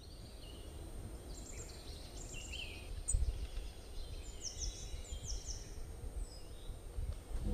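Outdoor woodland ambience: songbirds calling in short phrases of high, quick, downward-sliding notes, repeated every second or so, over a low steady rumble.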